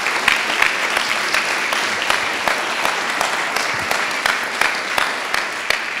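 Audience applauding: many hands clapping in a steady, dense patter.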